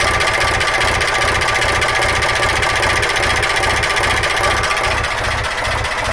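Vintage Ruston stationary diesel engine running steadily, with a fast, even beat.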